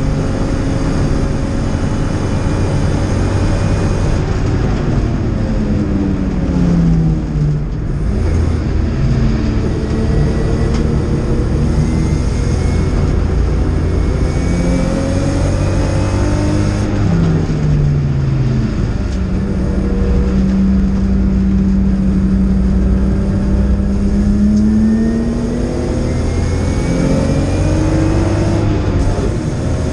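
BMW E30 325i race car's straight-six engine heard from inside the cabin at racing speed. Its note climbs under acceleration and drops twice on braking and downshifts, holds steady for several seconds in the middle, then climbs again near the end, over constant road and wind noise.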